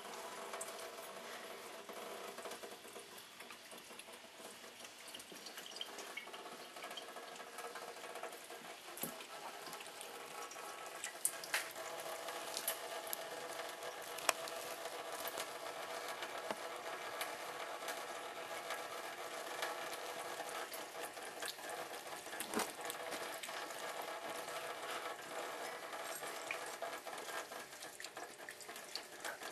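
Kitchen faucet running a thin stream of water into a stainless-steel sink: a steady splashing hiss, with a few sharp clicks.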